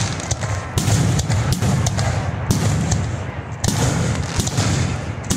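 Aerial fireworks bursting: a run of bangs and sharp cracks, a heavier boom about every second or so, over a continuous rumble and crackle.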